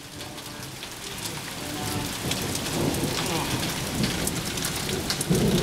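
Rain falling during a thunderstorm, with fine drop clicks throughout. A low rumble of thunder builds from about two seconds in, growing gradually louder.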